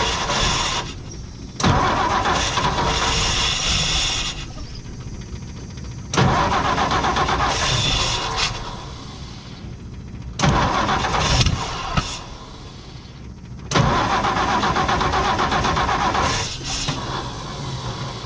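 1958 Ford F100's six-cylinder engine being started over and over: about four times it cranks, catches and runs roughly for a couple of seconds, then dies away. It starts and wants to run but doesn't fire every cylinder, a misfire the owner puts down, more than likely, to burnt ignition points.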